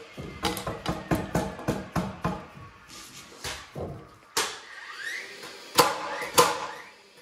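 Light knocks of wood as studs are tapped and shifted into line, then a cordless DeWalt brushless framing nailer firing: a rising whine as its motor spins up and three sharp shots of nails driven into the 2x4 frame.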